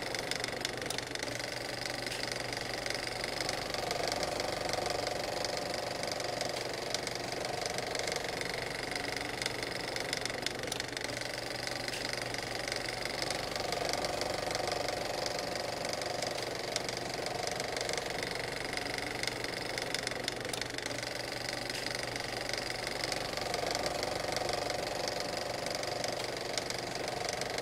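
An engine running steadily at idle, with a fast, fine ticking through it; the sound swells a little about every ten seconds.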